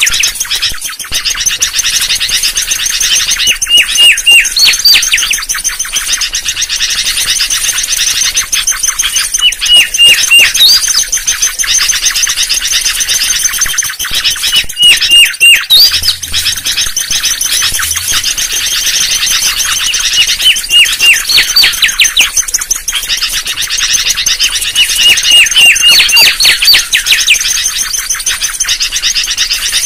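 Mangrove whistler (kancilan bakau) song used as a trapper's lure: loud runs of four to six short whistled notes, each dropping sharply in pitch, repeated about every five seconds. A steady, fast, high chirping runs underneath.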